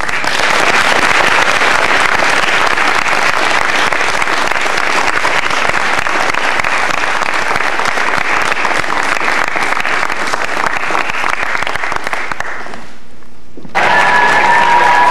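Audience applauding: a long, even round of clapping that cuts off abruptly about thirteen seconds in. After a short break, clapping starts again with a high held shout over it.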